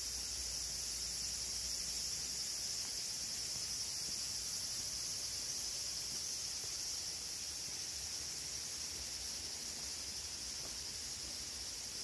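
Steady, high-pitched chorus of insects chirring without a break, with a faint low rumble underneath.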